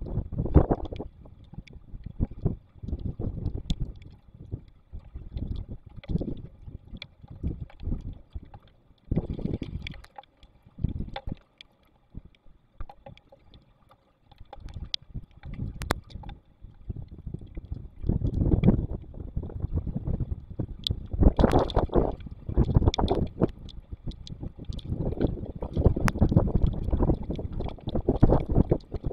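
Storm wind buffeting an outdoor webcam microphone in irregular gusts, with a lull about twelve seconds in and stronger gusts in the second half.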